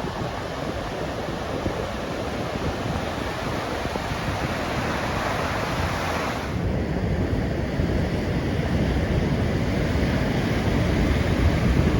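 Rough sea surf washing in steadily, with wind buffeting the microphone. The higher hiss of the surf drops away abruptly about halfway through.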